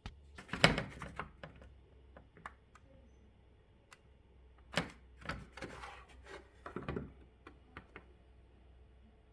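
Irregular knocks, taps and clicks of hard objects being handled, over a faint low hum. The loudest knock comes just under a second in, with further clusters around five and seven seconds.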